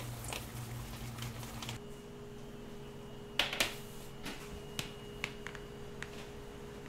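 A few sharp clicks and light knocks, the loudest two close together about three and a half seconds in, over a steady machine hum.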